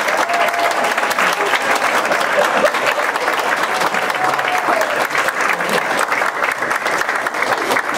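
Audience applauding, a dense, steady clapping that holds through the whole stretch.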